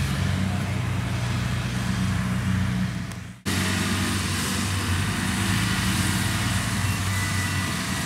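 Kubota DC-70 combine harvester's diesel engine running steadily under load while cutting rice. About three and a half seconds in, the sound fades and cuts out for an instant, then the running engine resumes.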